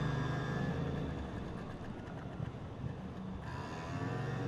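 A 2017 Yamaha MT-07's parallel-twin engine running under the rider, with a steady low note. The note drops back and gets quieter about a second in, then picks up again near the end.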